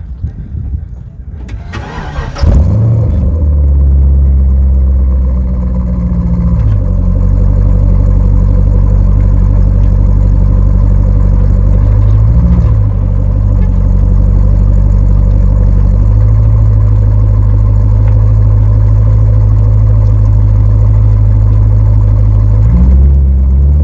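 Holden VZ Commodore's 5.7-litre LS1 V8 starting about two seconds in and settling into a loud, steady idle, heard close to the exhaust. There is one short blip of the throttle about halfway through.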